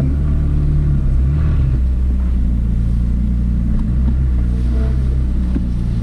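McLaren 600LT Spyder's twin-turbocharged 3.8-litre V8 running at low revs as the car creeps along, a steady low drone that rises slightly in pitch twice under light throttle.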